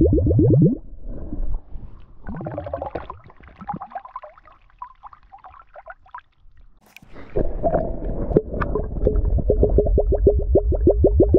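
Round glass flask filling underwater, air glugging out of its neck in rapid, even pulses that climb in pitch as it fills, around the start and again through the second half. In between, quieter splashing and trickling as the flask's water is poured out.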